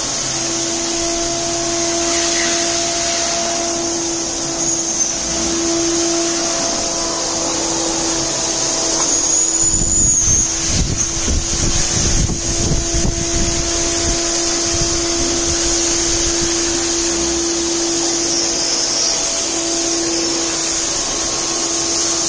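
Wet-dry vacuum cleaner running steadily with a hum and a strong airy hiss, sucking marble-polishing slurry off the floor through a squeegee wand. About ten seconds in, a rougher low rumble joins for a few seconds.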